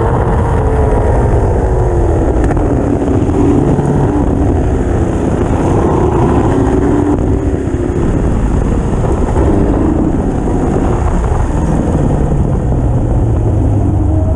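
Lotus 38 replica race car engine revving up and down repeatedly on a hard autocross run, settling to a lower, steadier note near the end. The engine has a faulty ignition module and/or coil that makes it misfire at full throttle.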